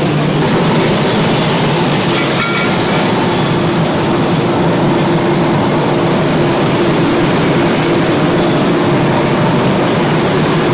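Turboprop engine of an ATR 72-600 airliner running steadily: a loud, even drone with a low hum.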